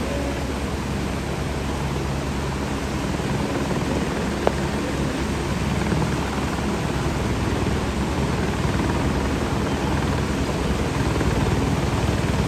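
Floodwater of a river in spate rushing steadily, with a low helicopter drone underneath and one sharp click about four and a half seconds in.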